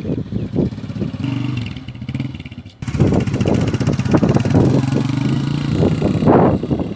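Motorcycle engine running, with rough wind-like noise over it; about three seconds in it cuts suddenly to a louder stretch.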